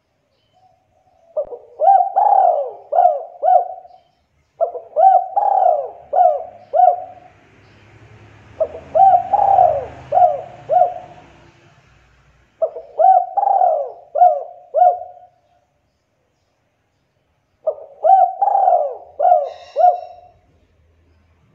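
Spotted dove (tekukur) cooing: five phrases of several quick coos each, repeated every few seconds.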